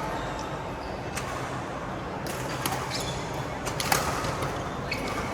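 Badminton rally: several sharp racket strikes on a shuttlecock, with the loudest hit about four seconds in, over steady indoor court noise.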